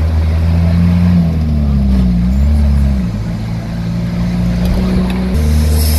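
Moving vehicle's engine and road noise, a steady low drone whose pitch dips and shifts a few times as the vehicle changes speed.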